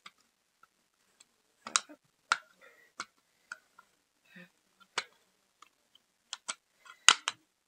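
Scissors cutting and prying at a PlayStation 2 controller: a series of sharp, irregular plastic clicks and snaps, unevenly spaced, the loudest near the end.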